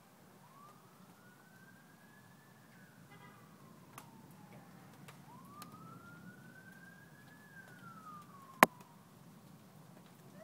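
Faint emergency-vehicle siren in a slow wail, rising and falling twice. A single sharp click about eight and a half seconds in is the loudest sound, with a few fainter ticks around it.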